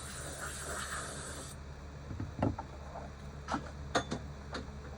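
Light hiss of compressed air blown over a freshly oiled painted metal typewriter panel to dry it off, cutting off sharply about a second and a half in. A few faint clicks and knocks of handling follow.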